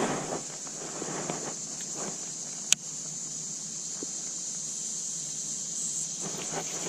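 Steady high-pitched insect drone in the background, with some rustling handling sounds near the start and one sharp click about three seconds in.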